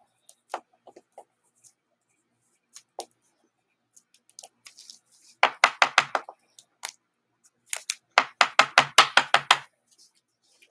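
A stack of trading cards handled in gloved hands: scattered light clicks and taps, then two quick runs of even clicking, about seven to eight a second, one about halfway through and a longer one near the end.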